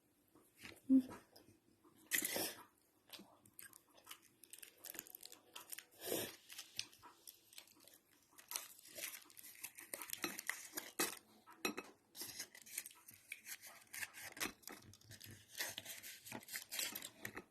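Handling of small plastic parts and wrapper from a surprise egg: irregular clicks and taps with crinkly rustling.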